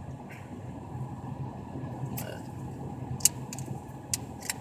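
A few sharp plastic clicks from handling the action camera and its hard plastic waterproof case, over a steady low background hum.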